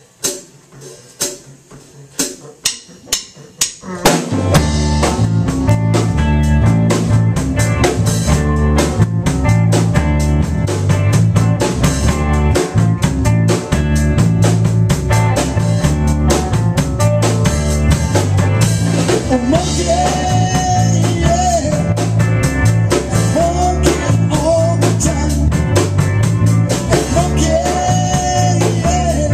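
A blues band playing live. It opens with about four seconds of evenly spaced sharp clicks counting in, then the full band comes in loud, with drum kit and a walking bass line. Bending lead notes come in over the groove in the second half.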